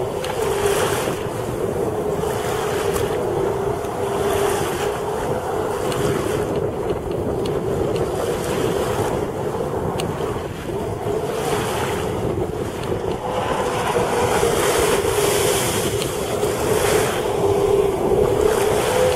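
Sea-Doo GTi jet ski engine running hard, a steady whine that wavers up and down in pitch as the craft carves tight turns, with wind buffeting the microphone and water rushing.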